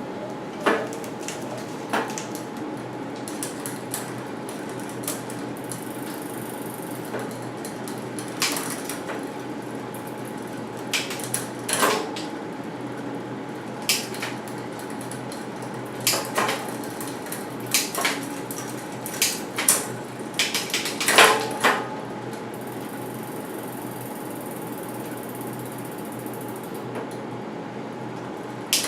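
Irregular metallic clicks and clunks of hands working on a mountain bike's drivetrain, the loudest cluster about two-thirds of the way through, over a steady background hum.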